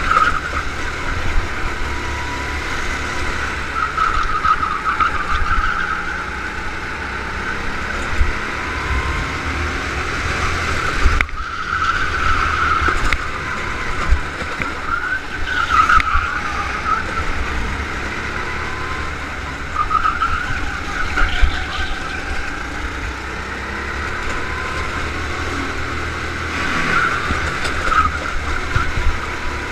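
Go-kart engine recorded onboard, its note rising and falling every few seconds as the driver accelerates out of corners and lifts for the next, over a constant low rumble of wind and vibration on the camera.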